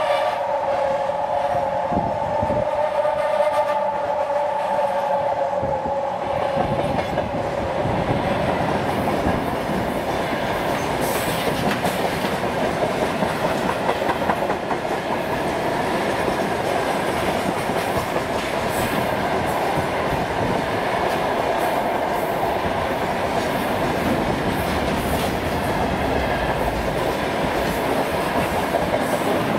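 Freight wagons rolling past close by: empty container flatcars, then loaded gondolas and tank cars. The wheels clatter over the rail joints in a continuous rattling rumble. A steady ringing tone fades out over the first few seconds.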